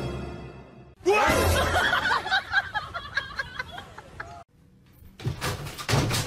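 Music fades out in the first second. Then a person laughs hard in a long run of high giggles for about three seconds. A few sharp knocks follow near the end.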